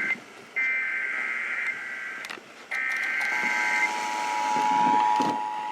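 Emergency Alert System SAME header over broadcast radio: bursts of high warbling data tones, each about a second long with short gaps. A steady attention tone starts about three seconds in, with a few sharp clicks.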